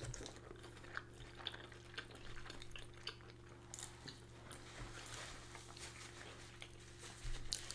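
Faint eating sounds: soft chewing and scattered small clicks at irregular times, over a steady low hum.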